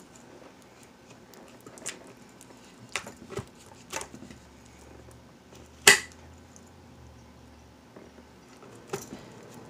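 Plastic pie mold being cut away from the cast furnace cap: a handful of scattered sharp clicks and snaps, the loudest about six seconds in.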